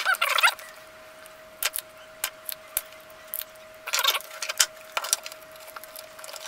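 Desoldering work on a circuit board: scattered sharp clicks and short metallic clatters from a spring-loaded solder sucker and tools against the board, over a faint steady high tone.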